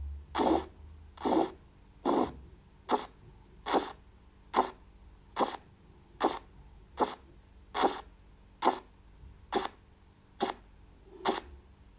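Korotkoff sounds through a stethoscope on the brachial artery as the blood-pressure cuff deflates: a regular series of short taps, one with each heartbeat, about fourteen in all, getting gradually fainter. They are the pulse of blood pushing through the partly squeezed artery.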